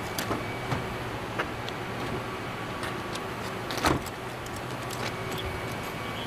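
Steady hum of an idling police SUV, with a faint steady whine and a few light clicks and taps, the sharpest about four seconds in.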